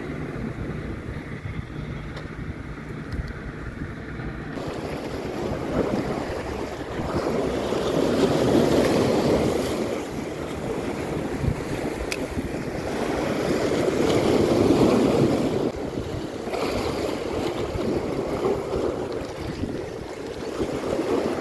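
Sea waves washing and breaking against rocks, with wind on the microphone; the wash swells up about eight seconds in and again near fifteen seconds.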